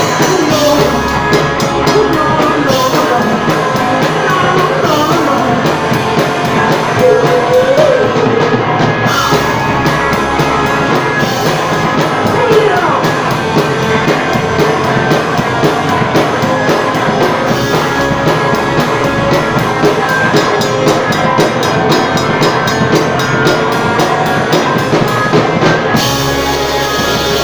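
Live rock band playing a song: drum kit, instruments and a singing voice.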